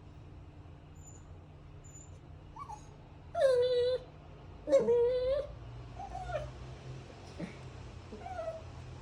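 A dog whining: two long, loud cries a second apart, each holding a steady pitch, then a few softer, shorter whimpers.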